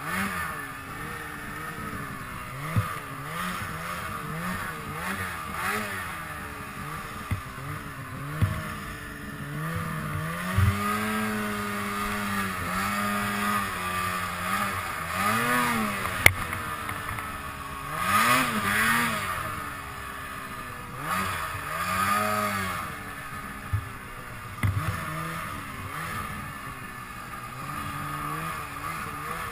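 Polaris snowmobile engine revving up and down as the sled is worked through deep powder between trees, its pitch rising and falling again and again with a short steadier run midway. A few sharp knocks come through, the loudest about halfway.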